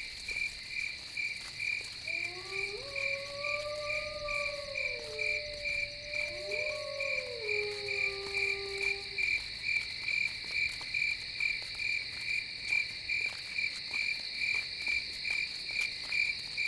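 Night-time insect chorus: a cricket-like chirp pulsing evenly, a couple of times a second, over a steady high insect hiss. From about two seconds in, two long, eerie wavering tones rise, hold and fall away, each lasting about three seconds.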